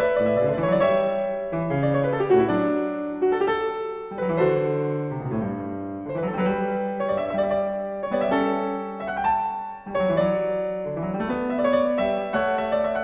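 Background piano music: a steady flow of overlapping notes, broken-chord style.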